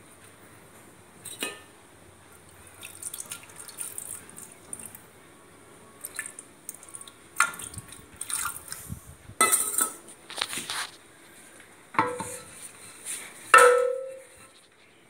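Wooden dal churner mashing cooked lentils in a metal pot: irregular wet squelching and sloshing strokes, with sharp knocks of the wood against the pot. The loudest knock comes near the end and leaves the pot ringing briefly.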